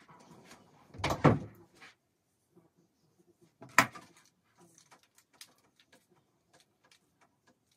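Handling noises from hair and a curling iron being worked: a brief loud rustle about a second in, a sharp click just before four seconds, then a run of light clicks.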